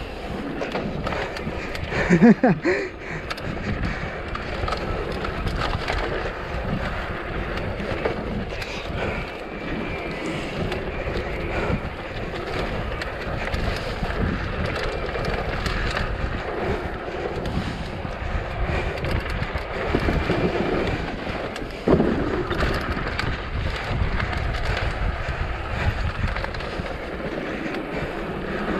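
Downhill mountain bike riding a dirt trail: tyres rolling and the bike rattling over rough ground, with wind buffeting the microphone. A sharper, louder jolt about two seconds in and another near the end.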